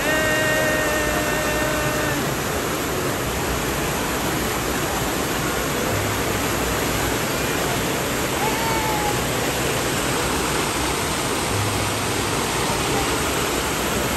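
Water slide outflow rushing and churning steadily into the splash-down pool. In the first two seconds a raised voice shouts or squeals over it.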